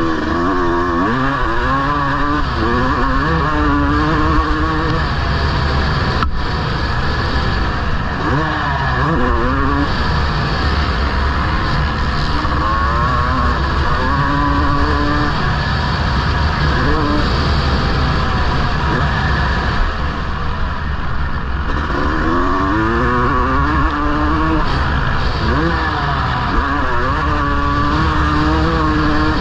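Honda CR250R's single-cylinder two-stroke motocross engine being ridden, its revs climbing and dropping over and over as the throttle is worked on and off, over a steady rush of noise.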